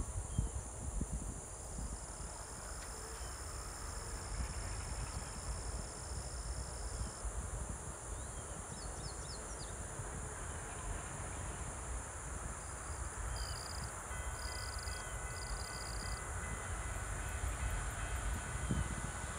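Steady high buzzing of insects, with wind rumbling on the microphone and a few short bird chirps. Faint steady tones at several pitches start about two-thirds of the way through.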